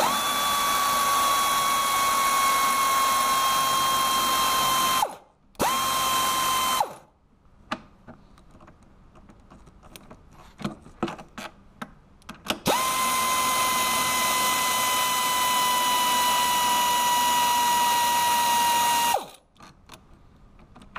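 Pneumatic air ratchet spinning out half-inch bolts: a long run of about five seconds, a short burst, then after a few small clicks another run of about six seconds. Each run is a steady whine over the hiss of the air.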